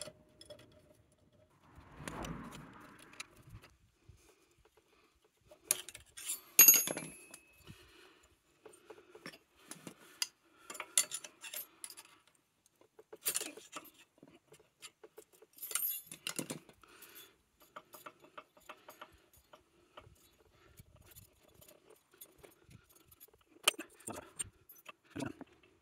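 Steel hand tools clinking, rattling and knocking against a jammed Tomos moped clutch hub on its crankshaft as it is struck to jolt it free. One sharp loud knock comes about six and a half seconds in, followed by lighter taps and clinks throughout.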